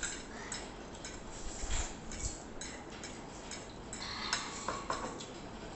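Forks and spoons tapping and scraping on ceramic plates during a meal: light, irregular clicks and short scrapes every half second or so.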